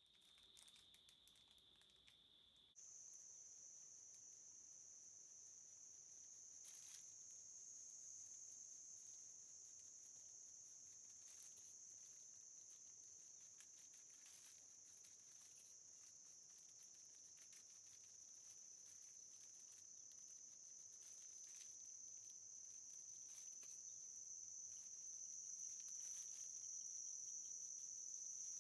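Near silence with a faint, steady high-pitched whine. A lower tone in the first few seconds gives way abruptly to a higher one about three seconds in, with faint scattered ticks.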